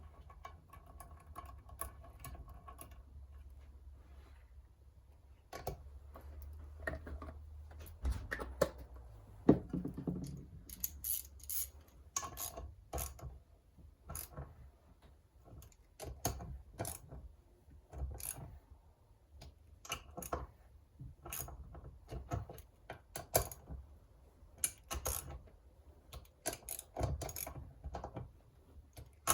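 Irregular sharp clicks and metallic knocks of hand tools and engine parts being handled during engine assembly, with a low hum under the first third or so.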